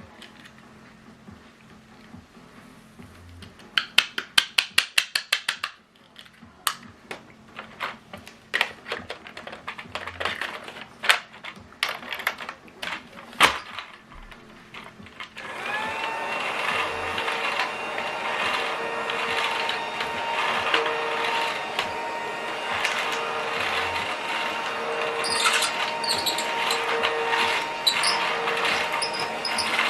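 Plastic clicks and knocks as a children's toy vacuum cleaner is handled, including a quick run of clicks. About halfway through, its small battery motor starts with a brief rising whine and then runs steadily, with a note that pulses about once a second.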